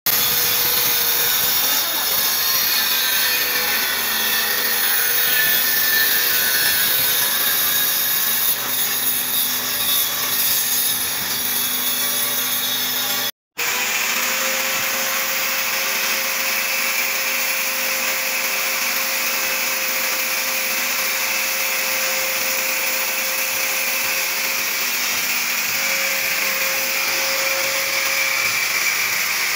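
Handheld electric angle grinder running under load against the wall at a tiled niche: a steady motor whine under a loud grinding hiss. The sound drops out for an instant about halfway through.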